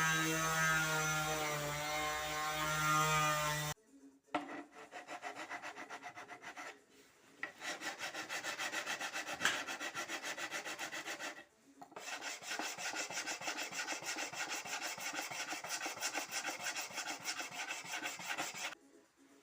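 A steady hum cuts off about four seconds in. It is followed by fast, even back-and-forth strokes of a hand tool rubbing on wood, in long runs broken by two short pauses.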